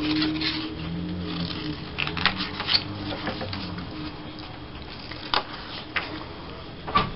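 Paper and cardstock being handled on a table: soft rustling and a scattering of light taps and clicks as patterned paper strips and a card tag are picked up and laid down.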